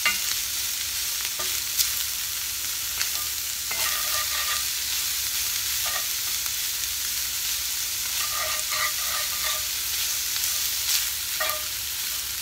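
Cut-up turkey sizzling in a hot cast iron skillet while a wooden spatula stirs it, scraping and now and then knocking against the pan.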